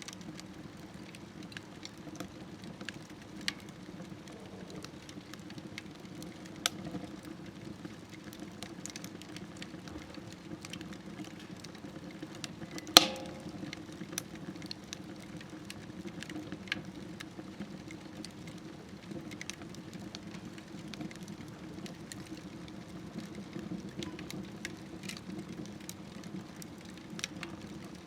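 Firewood burning in a smokeless wood stove: a steady low rush of flame with scattered crackles and snaps, and one sharp, loud pop about halfway through.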